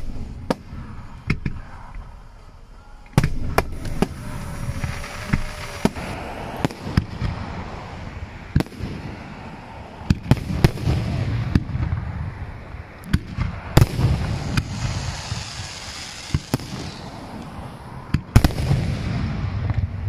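Aerial fireworks shells bursting in quick succession: many sharp bangs over a continuous rumble, which grows much heavier about three seconds in.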